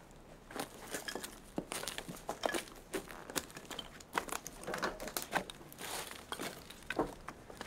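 Handling and movement noise: clothes rustling, scuffing and small irregular knocks as people shift and move about.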